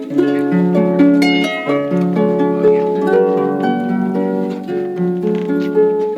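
Holiday music played on a plucked-string instrument: a continuous run of plucked notes that ring on and overlap.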